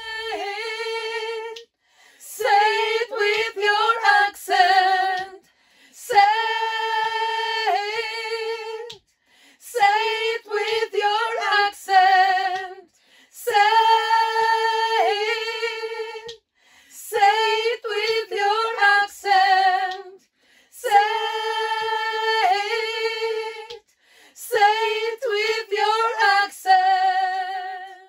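Women singing a cappella in about eight phrases of roughly three seconds each, with brief silences between them and held notes wavering with vibrato; no instruments are heard.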